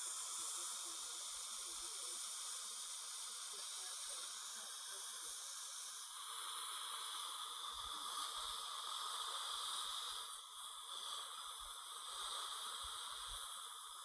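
High-speed dental air-turbine handpiece with a long, narrow diamond bur running as a steady high hiss, trimming freshly bonded porcelain veneers on the lower front teeth.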